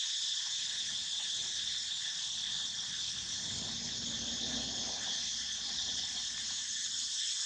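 Steady, high-pitched chorus of insects, with a faint low rumble around the middle.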